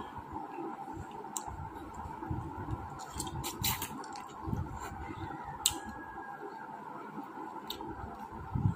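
A person eating cooked chicken stomach by hand: wet, squishy chewing and biting sounds with a few sharp clicks, over a steady background hum.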